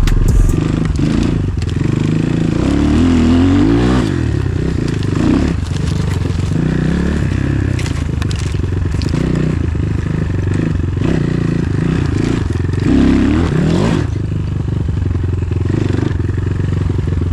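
Enduro motorcycle engine running as it is ridden, its revs rising and falling repeatedly with throttle and gear changes, with scattered knocks and clatter over rough ground.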